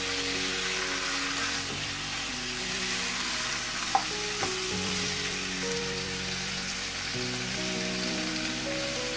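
Mutton and onions sizzling as they fry in hot oil in a nonstick pot, stirred with a ladle, with a sharp knock of the ladle against the pot about four seconds in. Soft background music plays underneath.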